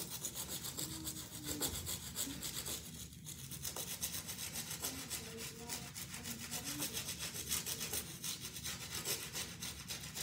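Toothbrush scrubbing toothpaste into a basketball shoe, a quick scratchy back-and-forth brushing kept up throughout.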